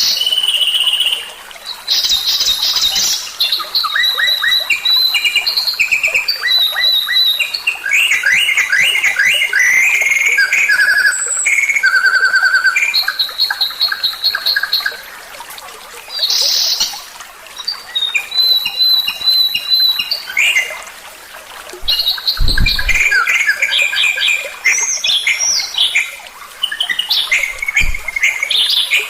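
Songbird song from a 'masteran' tutoring recording of the kind played to captive songbirds: quick, varied phrases of high whistles, trills and chirps, with short pauses between phrases. A brief low thump comes about two-thirds of the way through.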